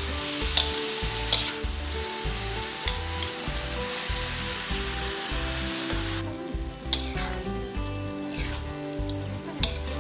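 Minced pork and green cabbage sizzling in a hot metal wok while being stir-fried, with the metal spatula clicking and scraping against the pan; the sizzle dies down about six seconds in. Background music with a steady beat runs underneath.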